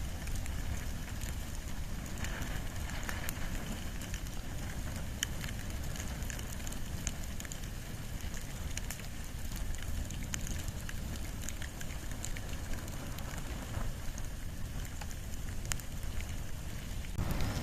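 Wood and bamboo fire burning: a steady low rush of flames with scattered sharp crackles and pops.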